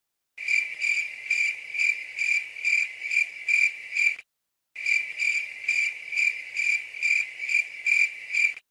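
Cricket chirping in a steady run of high chirps, about two and a half a second. It is cut off twice by brief dead silences.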